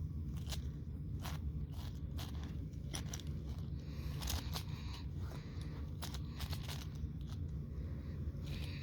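A 5x5 Rubik's cube being turned by hand: irregular quick plastic clicks and scrapes as its layers are twisted, over a steady low hum.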